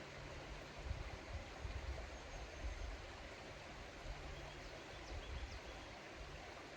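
River water rushing steadily, an even wash of noise, with irregular low rumbles underneath.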